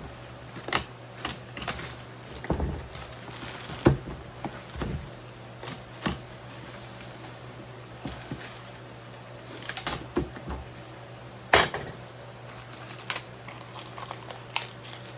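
Hard plastic parts of a Milwaukee M18 Packout cordless wet/dry vacuum being handled and worked open: a string of irregular clicks, clacks and knocks, with two louder knocks about four and about twelve seconds in.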